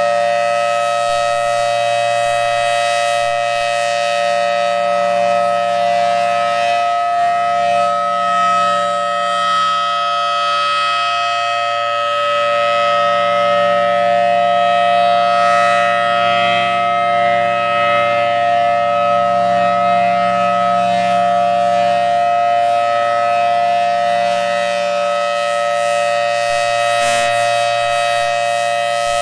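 Federal Signal Thunderbolt 1000T outdoor warning siren sounding its steady alert signal, several tones held together at constant pitch with gentle swells in loudness, extremely loud at close range. It is the three-minute full alert the siren gives when it misses the cancel tones that normally stop its monthly test after one minute.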